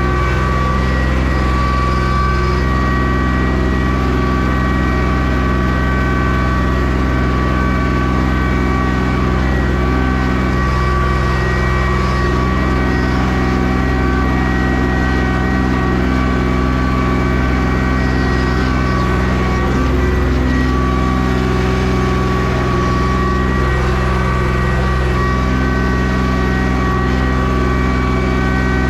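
An engine running at a steady speed throughout, with a constant high whine above the engine note.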